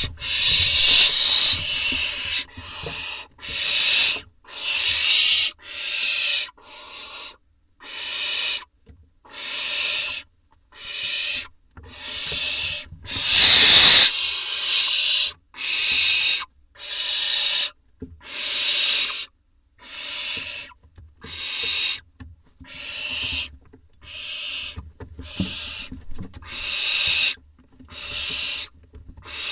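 Barn owl nestlings giving their hissing, rasping begging calls, about one a second, with a louder call about 13 seconds in.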